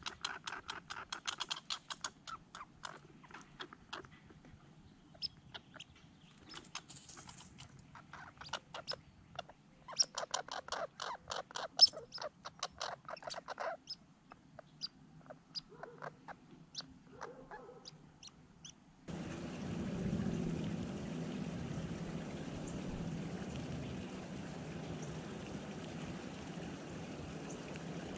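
Red squirrel chattering in rapid runs of sharp, harsh notes, with a long run at the start and another around ten seconds in. About two-thirds of the way through, it gives way abruptly to a steady rushing noise.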